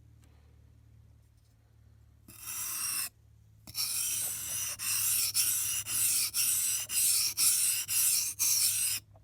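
Damascus steel knife blade being sharpened on a whetstone: a single stroke, a short pause, then steady back-and-forth scraping strokes at about two a second.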